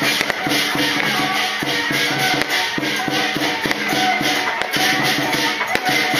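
Music with a steady beat and shaker-like percussion over held tones.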